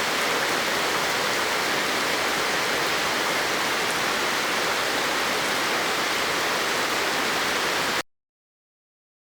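Steady rushing noise of water, like rain or falling water, that cuts off abruptly about eight seconds in.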